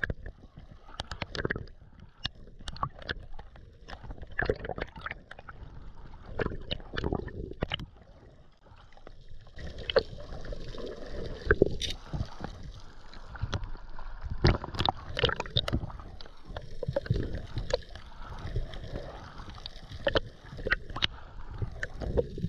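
Water sloshing and gurgling around a camera at and just below the surface, with many irregular clicks and knocks.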